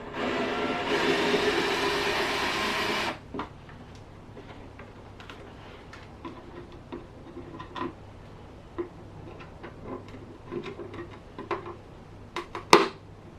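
A handheld power tool's small electric motor runs for about two and a half seconds, starting and stopping abruptly, working the screws out of the toolbox's metal fittings. Then come light clicks and taps of the hardware being handled, with one sharp knock near the end.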